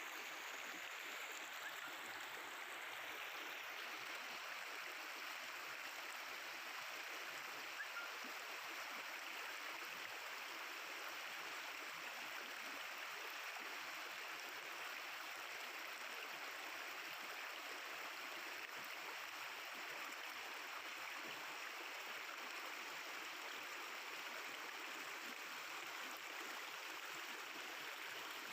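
River water flowing and babbling steadily.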